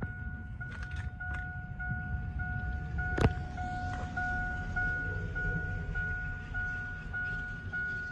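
2002 Chevrolet Silverado's dashboard warning chime sounding steadily, about two chimes a second, as it does while the driver's door stands open. A single sharp click about three seconds in.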